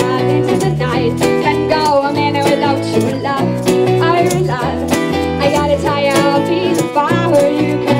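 Live acoustic pop performance: a woman singing over a steadily strummed acoustic guitar and a bass guitar.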